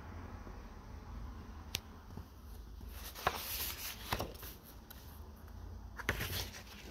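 Paper rustling and light taps as a hand handles and turns a page of a spiral-bound sketchbook, with a sharp tick near the start and scattered rustles and knocks through the middle and near the end.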